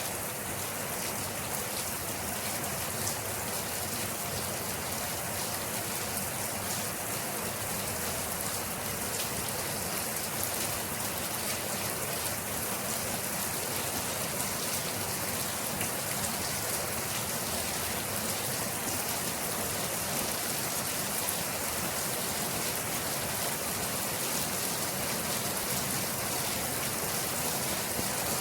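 Steady rain falling: an even hiss of rain with the fine patter of drops, unchanging throughout.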